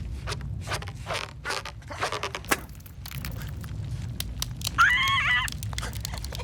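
Cartoon sound effects over a steady low rumble of background ambience: a run of short scraping and scuffling noises with scattered clicks, then a character's short cry with a wavering pitch about five seconds in.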